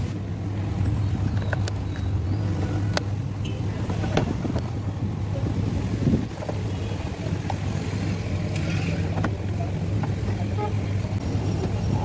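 Steady low engine hum with scattered sharp clicks and taps of a screwdriver and plastic trim being worked at a car's steering column.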